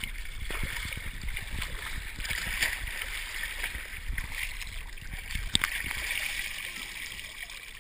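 Lake water splashing and sloshing against an action camera held at the water's surface as its wearer moves through the water, with a few sharp knocks, the loudest a little past the middle.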